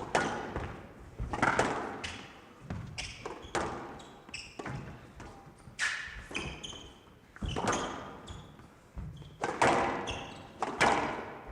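Squash rally: the ball struck by rackets and hitting the court walls, giving sharp thuds at an uneven pace of roughly one a second, with echo in the glass court.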